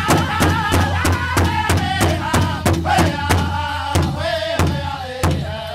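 Powwow drum group of male singers singing in unison over a large shared powwow drum, struck together at about four or five beats a second. About four seconds in, the drumming slows to single strokes roughly every half second while the singing carries on.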